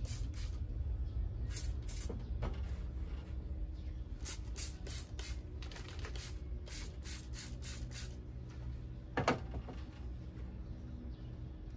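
Short sprays from a hand spray bottle, squeezed in quick runs of several strokes with pauses between, over a steady low hum. A single louder knock comes about nine seconds in.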